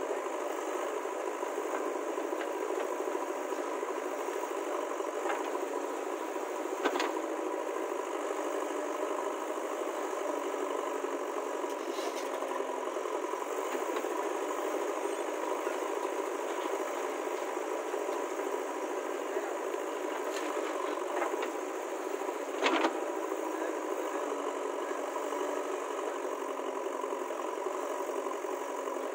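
Heavy diesel machinery engine running steadily with a rattle. Sharp clanks about seven seconds in and again near 23 seconds.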